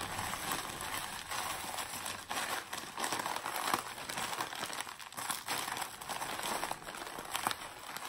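Nilla wafer cookies being crushed by hand inside a plastic zip-top bag: the bag crinkles steadily while the cookies crunch and crackle as they break into crumbs.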